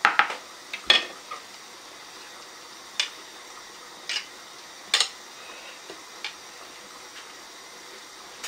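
Sharp clicks and knocks on a white ceramic bowl as hands and a spoon work steamed couscous. There is a cluster of clicks in the first second, then single clicks spread out every second or so.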